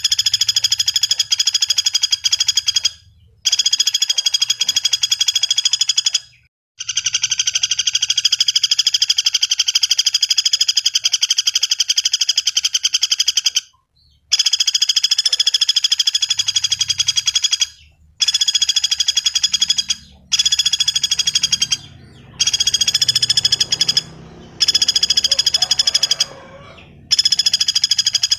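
Pelatuk bawang woodpecker calling in long, very rapid rattling trills, run after run of a few seconds each with short breaks between, played as a song-training recording.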